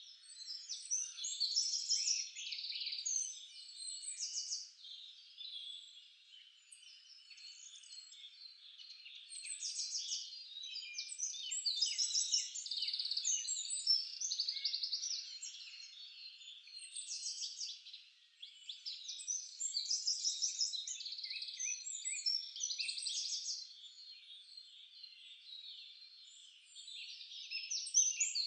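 Songbirds singing together in a dense chorus of overlapping chirps, rapid trills and short whistled phrases, swelling and fading in waves.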